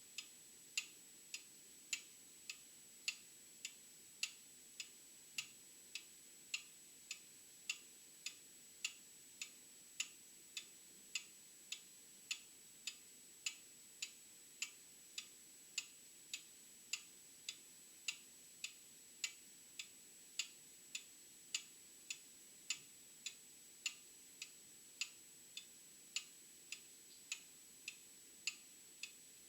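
Old mechanical clock ticking steadily, a tick-tock of about two and a half beats a second with alternating louder and softer beats.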